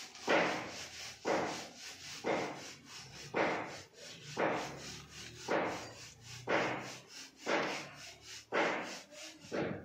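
Rhythmic scraping strokes, about one a second, each starting sharply and fading quickly.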